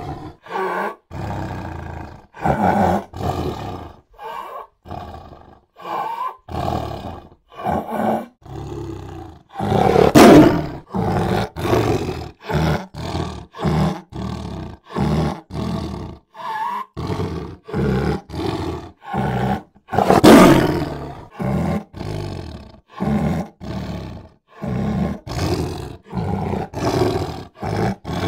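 Big cat roaring. There are full, loud roars about ten seconds in and again about twenty seconds in, with a steady run of shorter calls, one or two a second, between them.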